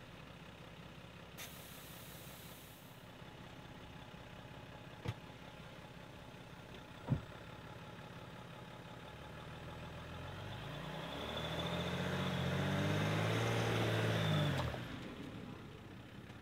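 Jeep Wrangler EcoDiesel engine idling, then revving up with a rising pitch from about ten seconds in as the stuck Jeep drives up onto traction boards out of a mud hole, dropping back suddenly a few seconds later. A sharp knock comes about seven seconds in, with a fainter one shortly before.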